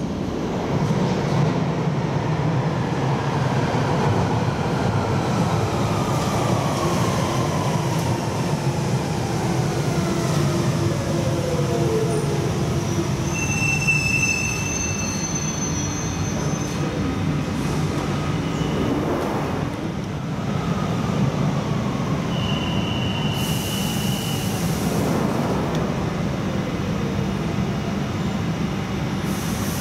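Central line 1992 stock tube train running into the station and braking to a stop, its motor whine falling steadily in pitch over about ten seconds, with wheel squeal. While it stands there are brief high tones and a short burst of air hiss, and near the end another falling whine as the train moves again.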